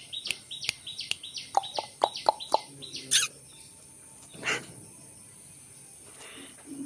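African grey parrot chirping: a fast run of short, repeated chirps, about four a second, with sharp clicks, then a single louder harsh call about three seconds in and a weaker one shortly after.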